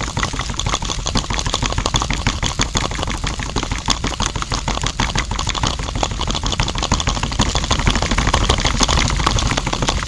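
Small electric motor turning a miniature concrete mixer's drum loaded with wet concrete, running steadily with a fast, continuous rattling chatter.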